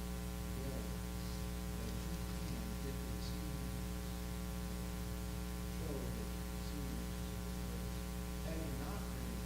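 Steady electrical mains hum with a stack of evenly spaced overtones, under faint, distant voices talking now and then.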